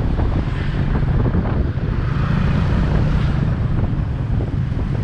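Wind buffeting the microphone on a moving motor scooter, with the scooter's engine and road noise running steadily underneath.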